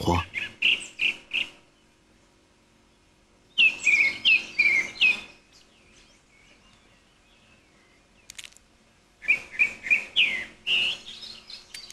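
A bird calling in three bursts of quick, sharp, high notes, four to six in each burst: one right at the start, one about four seconds in, and one near the end.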